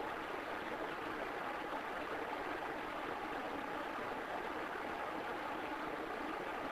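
Steady, even background hiss with no distinct events: room tone or recording noise.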